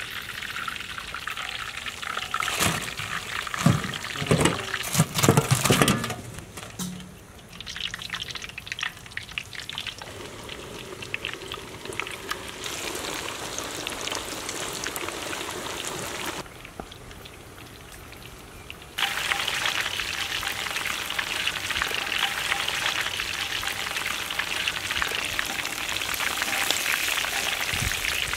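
Hot oil sizzling and bubbling as coated chicken drumsticks deep-fry in a large kadai. A few loud knocks come in the first six seconds. After a quieter stretch, the sizzle turns louder and steady about two-thirds of the way in.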